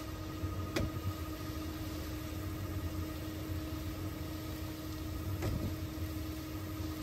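Steady low mechanical hum with a faint held tone, and two faint clicks, one about a second in and one near the end.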